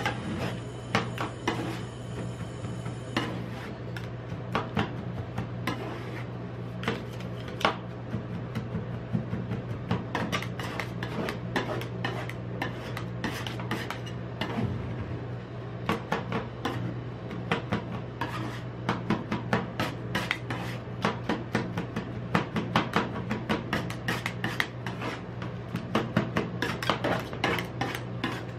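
Metal spatulas chopping, tapping and scraping on a steel rolled-ice-cream cold plate as chocolate is chopped into the freezing cream base and the mixture is scraped together. Rapid, irregular metal clicks and scrapes over a steady low hum.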